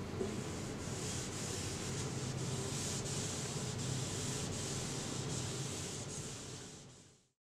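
A cloth rag rubbing raw linseed oil into an elm board: a steady rubbing hiss with strokes about three times a second, fading out near the end.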